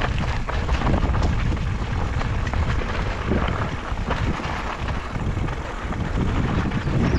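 Wind rumbling on the microphone while a mountain bike rolls over a rocky dirt trail, with frequent small knocks and rattles.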